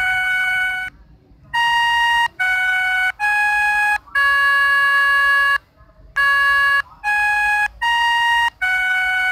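Synthesized melodica notes from the Melodica Pianika Virtual app on an Android phone, playing the railway station chime tune: a held note ends about a second in, then two four-note phrases, each closing on a longer held note.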